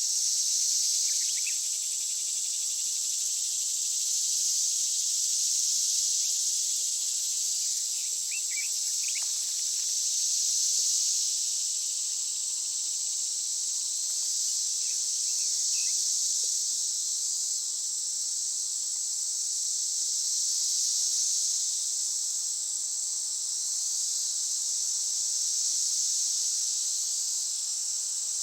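Chorus of insects: a steady, high-pitched buzz that swells and fades every few seconds, with a few faint short bird chirps.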